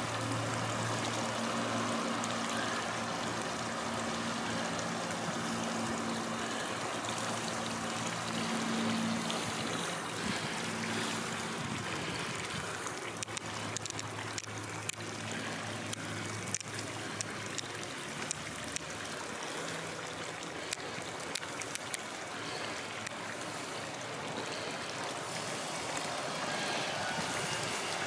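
Steady trickling and rushing of circulating swimming-pool water, with a low steady hum underneath that fades in and out. A few light clicks come about halfway through.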